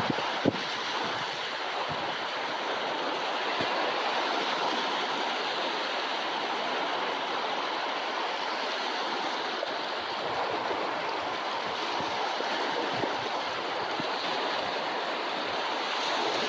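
Ocean surf breaking and washing up a beach, a steady rushing hiss with little rise and fall. A short knock just after the start.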